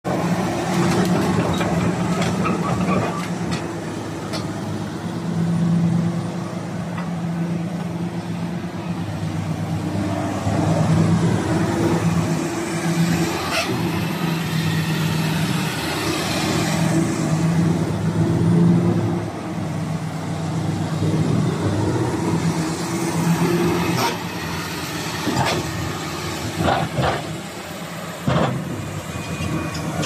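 Komatsu PC350-7 excavator's six-cylinder diesel engine running, its note rising and falling as the machine works its boom and arm. A few sharp clanks come in the last several seconds.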